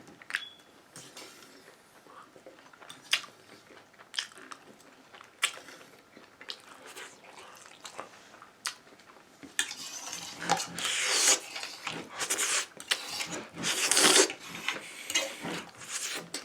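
Close-up eating sounds: a fork clicking and scraping against the food container, with biting and chewing. Sharp clicks are scattered through the first two-thirds, then the sounds come louder and denser near the end.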